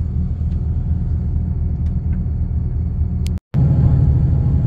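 Steady low rumble of a coach bus's engine and running gear heard from inside the passenger cabin. It cuts out for a split second about three and a half seconds in, then comes back louder.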